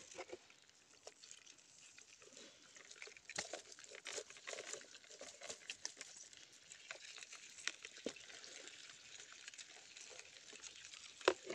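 Faint, scattered wet patter and clicking as a small catch of fish and crabs is shaken out of a dripping net into a plastic bucket, the fish flipping against the bucket's sides.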